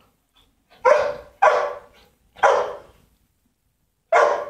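A dog barking: four sharp single barks, two in quick succession about a second in, another a second later, and one more near the end.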